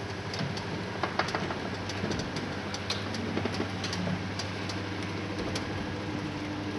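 Drive of a rotating dome running: a steady gear-motor hum with scattered sharp clicks and ticks from the drive tyres and dome, the abnormal noises being checked for.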